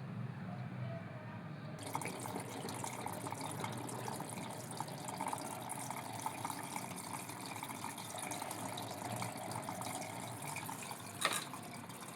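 Samsung front-load washing machine filling: water rushing steadily into the machine, starting suddenly about two seconds in. A single sharp click near the end.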